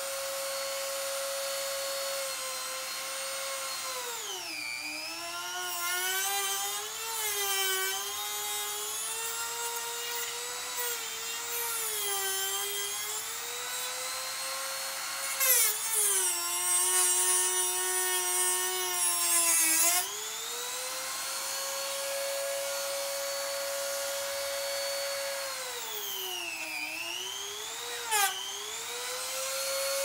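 Dremel rotary tool running with a steady high whine. Its pitch sags whenever it is pressed into the tire, and for about four seconds in the middle it bogs down lowest and cuts loudest with a gritty hiss. It is cutting through the rubber and steel belts of a stuck ATV tire bead beside the rim.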